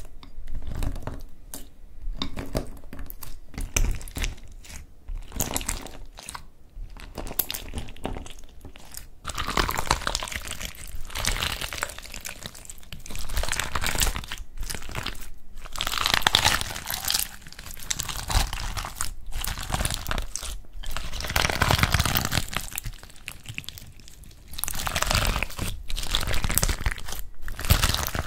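Clear slime packed with plastic flower-shaped beads being squeezed and kneaded by hand, giving crunchy, crackling squishes. The first several seconds hold scattered clicks and pops; after that come denser stretches of crackling in long bursts.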